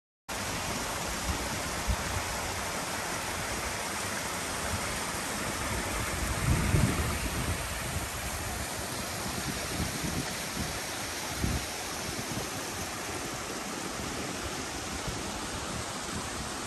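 Small snowmelt stream trickling and running over rocks, a steady rushing sound, with a few low thumps, the strongest about halfway through.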